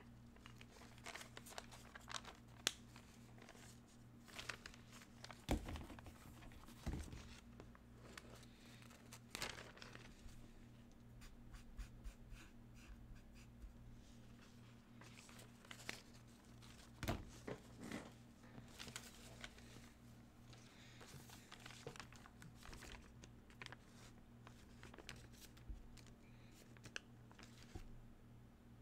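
Faint rustling of paper sheets and marker strokes on paper, with scattered small clicks and knocks, over a low steady hum.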